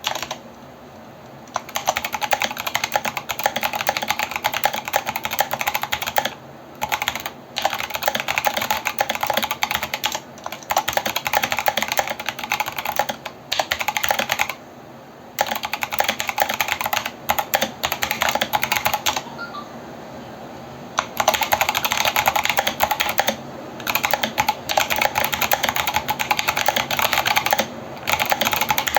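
Fast typing on a mechanical keyboard with Kailh Box Brown tactile switches and MT3-profile keycaps (Hexgears Gemini Dusk): dense runs of keystroke clacks. Typing starts about a second and a half in and breaks off for brief pauses, the longest about two seconds.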